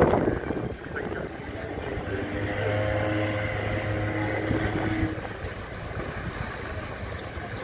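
A ship's horn sounds one steady low blast of about three seconds, starting about two seconds in and stopping cleanly, over wind on the microphone and the hum of boat engines.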